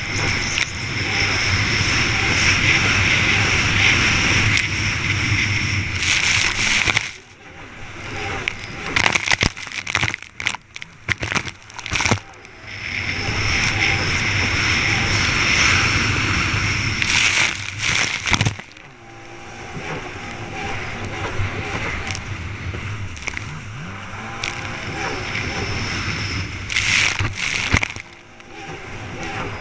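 Stand-up jet ski racing at full throttle, heard from a camera on the craft: a steady, loud engine and jet-pump drone mixed with wind and spray. About seven seconds in the drone drops away for several seconds into choppy splashes and knocks as the hull skips over the chop, and it dips again briefly around eighteen and twenty-eight seconds.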